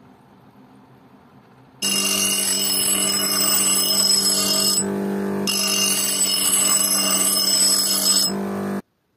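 Sturm electric bench grinder running with the steel edge of a kitchen axe head pressed to its stone wheel: a steady motor hum under a loud, high-pitched rasp of steel on the grinding wheel. The rasp drops away twice for about half a second as the blade comes off the wheel, the motor still humming; it all starts abruptly about two seconds in and cuts off suddenly near the end.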